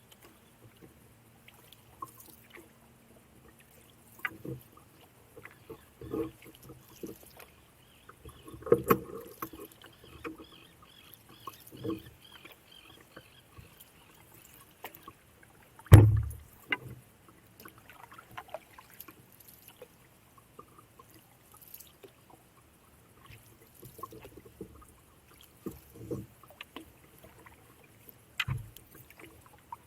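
Canoe being paddled: irregular paddle strokes and small splashes, with scattered knocks. A louder low thump comes about halfway through.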